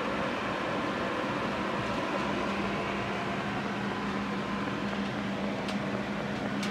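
Extractor fan running: a steady rush of air with a constant low hum under it, and a faint click near the end.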